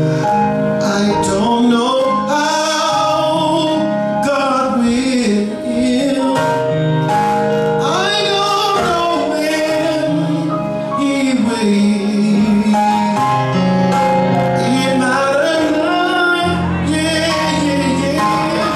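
Gospel song: a male voice singing long, sliding lines over held chords and bass notes.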